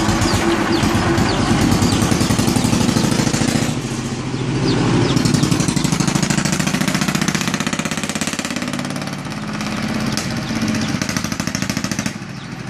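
Tuk tuk engine running with a fast, even putt-putt as the vehicle drives along, the engine easing off briefly about four seconds in and again about nine seconds in.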